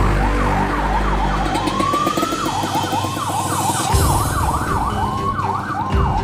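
Electronic vehicle siren in yelp mode: fast rising and falling wails, several a second, with one slower rising wail about two seconds in.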